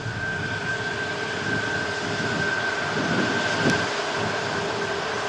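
Lufthansa Airbus A340's four jet engines running steadily as the airliner taxis: an even rushing jet noise with a high whine and a lower hum held at constant pitch.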